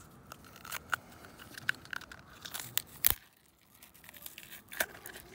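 Used cartridge oil filter element being pried and torn apart by hand: a series of sharp cracks and crinkling tears as the pleated paper and plastic cage give way, the loudest snap about three seconds in. The filter is opened to check the pleats for metal from engine damage.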